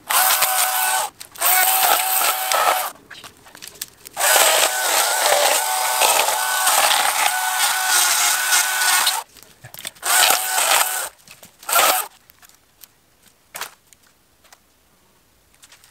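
Oregon battery chainsaw cutting through dead branches with a steady electric whine, in several bursts with short pauses, the longest about five seconds. It stops about twelve seconds in.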